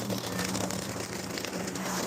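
EGO LM2130E battery lawnmower running with a steady hum while mulching hedge cuttings: a dense crackle and patter of twigs and leaves being chopped under the deck.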